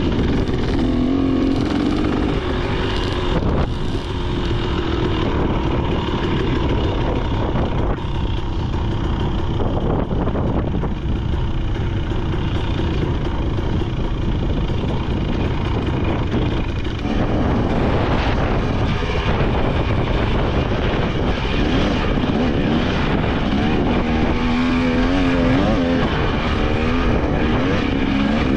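Two-stroke KTM 300 XC dirt bike engine running under a steady rush of riding noise, its pitch rising and falling with the throttle; the revving is quickest and most marked in the last several seconds.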